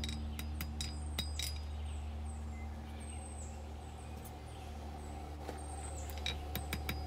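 Hammer blows on hot steel over an anvil, hammering in to set off the small blade from the handle: a few sharp strikes in the first second and a half and again near the end, with a quieter stretch between. A steady low hum runs underneath.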